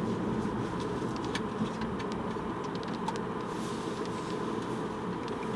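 Steady road and engine noise of a moving car, heard from inside the cabin, with a few faint light clicks.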